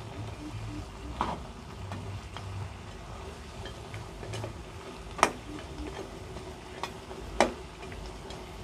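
Metal spatula stirring chunks of duck and onion in a nonstick wok, knocking against the pan in a few sharp clinks, the loudest about five seconds in. Under it, the shallow broth sizzles steadily as it simmers.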